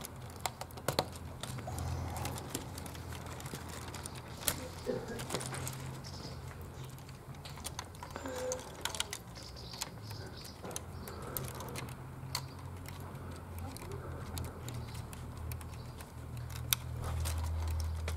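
Scattered sharp clicks and rattles of plastic Technic parts being handled as a disc harrow attachment is fitted to a brick-built tractor model and the model is lifted, over a low steady hum.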